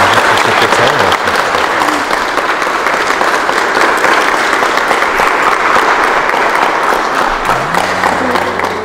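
Wedding congregation applauding the newly married couple, a dense steady clapping. Near the end, music with held low notes comes in under the applause.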